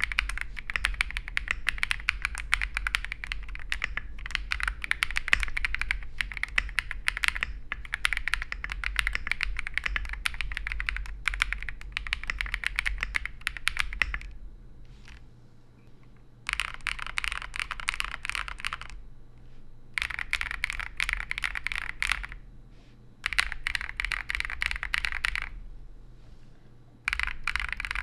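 Typing on a KiiBoom Phantom 81 clear-case mechanical keyboard: rapid, steady keystroke clacking for about 14 seconds. After that it comes in four short bursts of a couple of seconds each, with brief pauses between.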